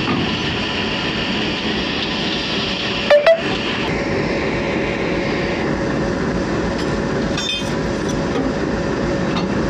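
Locomotive standing and running, a steady rumble with a faint constant hum over it. Two brief sharp knocks come about three seconds in, and a few light clicks follow later as the coupling is worked on.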